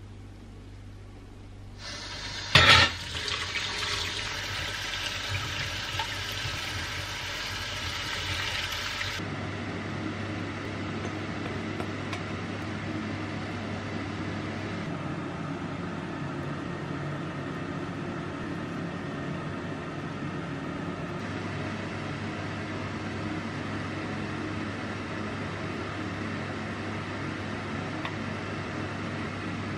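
Kitchen tap water running onto lentils in a metal colander in a stainless-steel sink, starting about two seconds in, with one sharp knock just after it starts. About nine seconds in it gives way to a steadier, lower water noise as water is poured into the pot of lentils.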